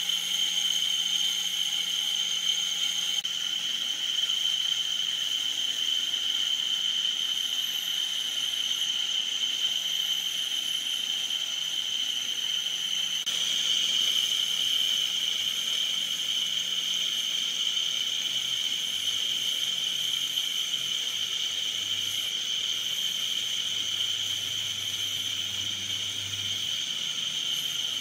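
Bench grinder's wire wheel brush scouring rust off a small steel cap held against it: a steady high-pitched whir and hiss that shifts a little twice as the part is moved on the wheel.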